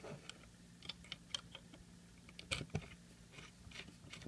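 Irregular light clicks and taps of a small screwdriver driving a screw into a power supply's circuit board and plastic case, with the case handled and shifted on the bench.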